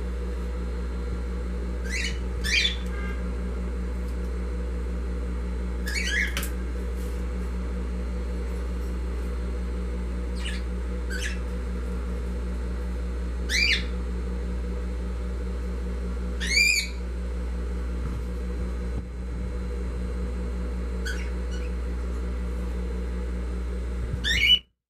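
Steady hum of an industrial sewing machine's motor, with a bird giving short rising chirps every few seconds over it. The sound cuts off suddenly near the end.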